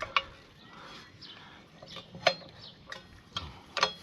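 Sharp metallic clicks and taps of hand tools working on a motorcycle wheel while a new tubeless valve stem is fitted into the rim: a few loud clicks, the loudest about two and four seconds in, between fainter taps.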